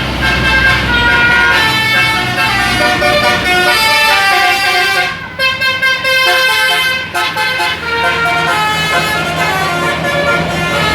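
Basuri 'telolet' multi-tone bus horn playing a melody, several notes sounding together and changing in quick steps, with short breaks about five and seven seconds in. A bus engine runs low underneath.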